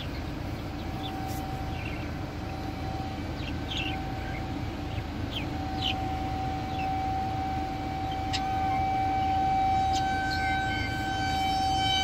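A distant outdoor alarm sounding one steady high tone, quiet at first and growing louder through the second half.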